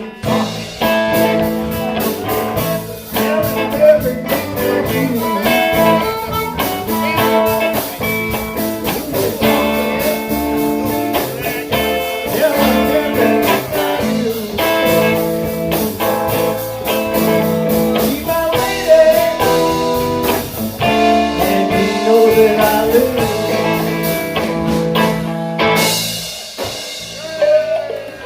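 Live electric blues band playing a shuffle with electric guitars, blues harmonica, bass and drum kit; about 26 seconds in the band stops together on a final chord that is left ringing and fading out.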